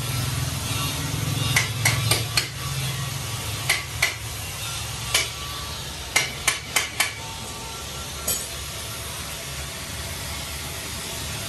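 A hammer striking metal in uneven runs of sharp blows, about a dozen in all, the busiest stretch in the first seven seconds, over a steady low workshop hum.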